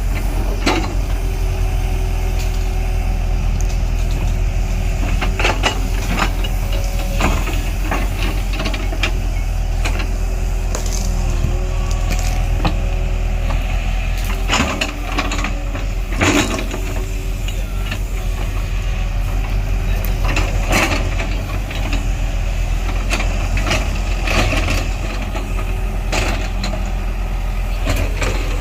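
Diesel engine of a heavy earth-moving machine running steadily, with repeated clanks and knocks scattered through it.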